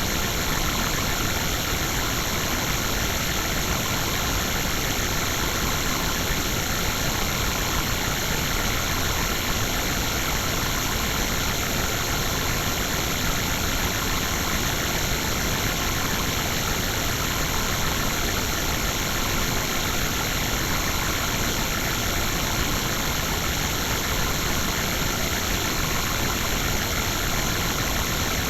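Steady, unchanging electronic noise drone, a synthesized sound effect with an even hiss and rumble across the whole range and no breaks or changes.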